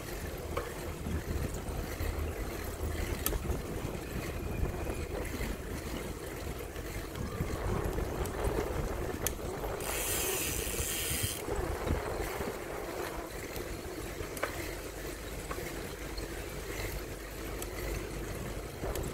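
Riding noise from a bicycle on a paved path: wind rushing over the microphone and a steady low rumble from the ride. About ten seconds in, a louder hiss lasts for about a second and a half.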